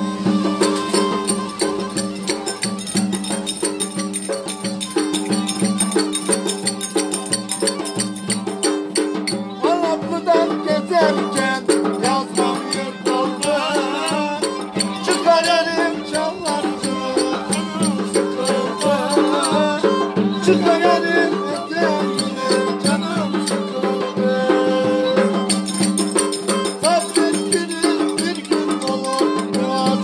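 A violin held upright on the knee and bowed in Turkish folk style, playing a lively dance tune with wavering melody over a held low note. Rapid clicking percussion runs along with it throughout.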